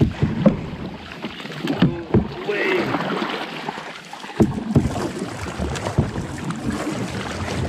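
Water splashing and sloshing around a kayak as it is spun round in a tight turn, with a few sharp knocks.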